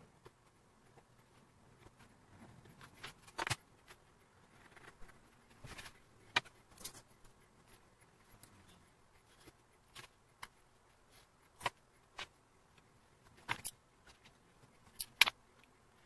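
Hand leatherworking on a plastic cutting board: scattered sharp clicks and light taps of small metal tools, with a few short scrapes against the leather. The clicks come irregularly, a couple of seconds apart, and the loudest fall near the end.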